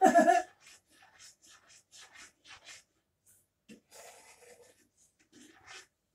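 A brief vocal sound at the very start, then a run of faint, short scraping and rubbing sounds at the stove: a spoon stirring a pan of thick, bubbling tomato soup.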